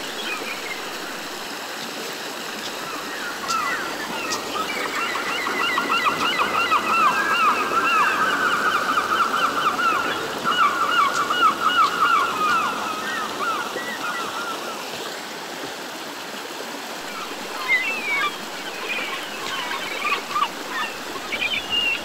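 Shallow rocky stream flowing over stones, with a steady rush of water. About three seconds in, a long run of rapid, repeated animal calls starts, the loudest sound, and lasts about twelve seconds; near the end come scattered short chirps.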